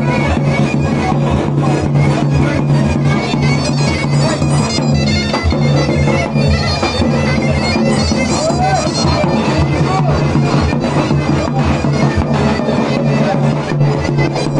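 Live zurna and davul playing a horon dance tune: the reedy zurna melody over rapid, steady davul beats.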